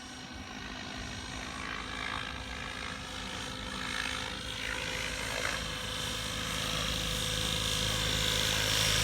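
Mikado Logo 690 electric RC helicopter in flight: the 12-cell electric motor's high whine over the main rotor's steady hum, growing steadily louder.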